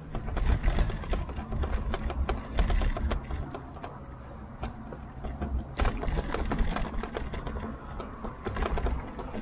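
Tern HSD bike rattling as it rides over a rough path, with its tyres rumbling underneath, as picked up by a camera mounted on the handlebars. A fast, uneven clatter of small knocks over a low rumble, easing a little around the middle with one sharper knock just after.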